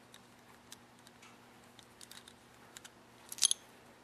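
Small metal-on-metal clicks and ticks as pliers grip a brass carburetor needle seat and turn it off a bolt and socket. A quick cluster of sharper clicks comes about three and a half seconds in, over a faint steady low hum.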